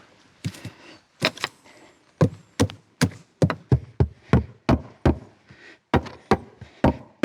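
Hammer driving nails into a wooden plank, a few scattered knocks and then steady blows about three a second from about two seconds in.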